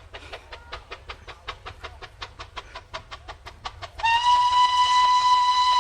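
Steam locomotive running with rapid, even beats, about five a second, then its steam whistle sounds a loud, steady blast from about four seconds in.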